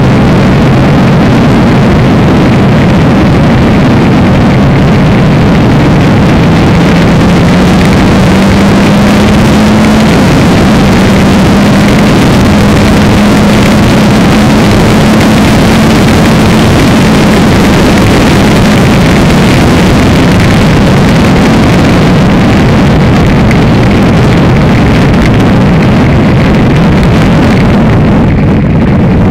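Reynard single-seater racing car's engine running hard at speed, recorded onboard and loud, over a dense rushing hiss. The engine note climbs slightly over a few seconds and breaks briefly about ten seconds in, then holds steady. The hiss fades near the end.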